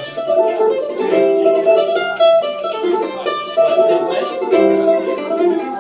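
A mandolin-family instrument played live in an instrumental passage of quick picked notes.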